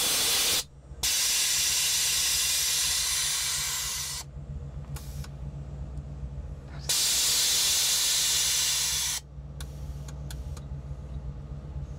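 Air bag suspension of a 1989 Chevy Suburban being dumped from maximum height: loud hissing blasts of air from the exhaust valves, one of about three seconds, a brief puff, then another of about two seconds, as the truck is lowered. A steady low engine idle runs underneath.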